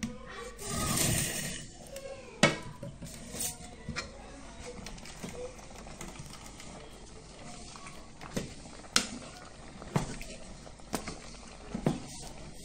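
A utensil clattering against a cooking pot: a brief stirring scrape near the start, then sharp single knocks every second or so.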